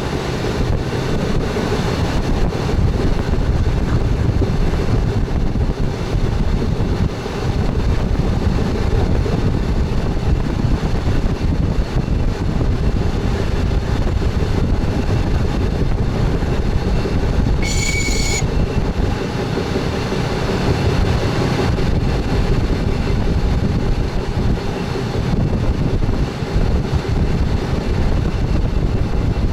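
Express train running steadily along the track, heard from inside the front driver's cab: a continuous loud rumble of the wheels and running gear. A short high beep sounds once a little past the middle.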